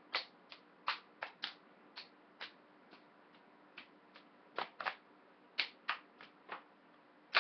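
Children's hands clapping and slapping together in a rehearsed clapping-game handshake: about twenty sharp claps at an uneven pace, with short pauses and some claps in quick pairs.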